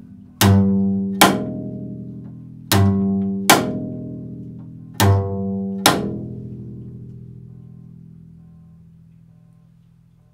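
Double bass played pizzicato. Three times a low plucked note rings and is followed a moment later by a sharp percussive slap. After the third pair the note dies away slowly to the end.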